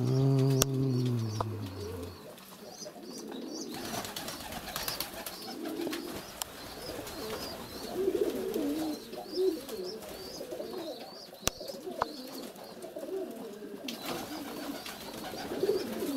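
Domestic pigeons cooing in a loft, a wavy low warbling that keeps coming and going, with faint high chirps and a few light clicks. A louder low steady hum lasts about the first two seconds.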